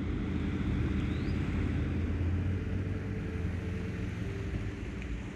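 An engine running steadily, a low hum with a few held tones.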